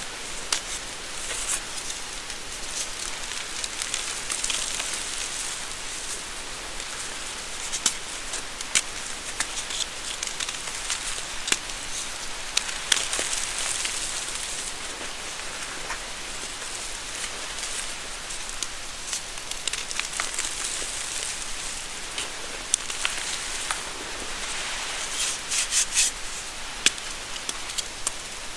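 Reformed gym chalk blocks crumbled and crushed by hand over a bowl of loose powder: a steady hiss of powder sifting through the fingers, with scattered sharp crunches as chunks break. Near the end comes a quick run of crackles.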